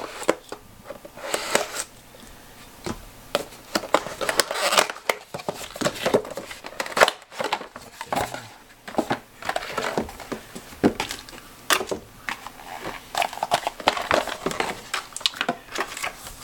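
Cardboard and plastic packaging being handled during an unboxing: a folding knife slitting the box's seal, the cardboard box being pulled open, and a clear plastic clamshell tray and paper insert crinkling and clicking. The noises come as irregular rustles and sharp clicks.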